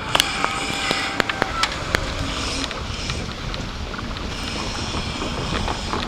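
Keikyu 1000 series stainless six-car electric train running past over the level crossing. Its wheels clack over the rail joints several times in the first two seconds, over a steady running noise.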